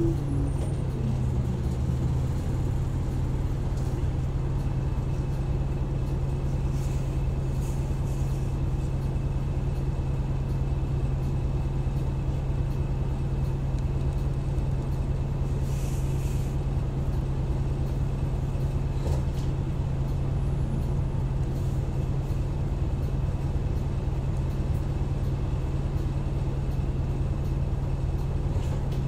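Hino Rainbow medium-size bus's diesel engine idling steadily while the bus stands still. The engine speed falls away in the first couple of seconds and then holds an even low hum.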